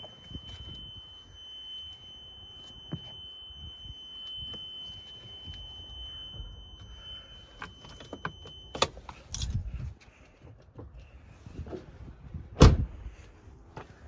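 Handling inside a parked Toyota Land Cruiser's cab: keys jangling and small knocks under a steady high-pitched electronic warning tone, which stops with a sharp click about nine seconds in. A loud thump follows near the end.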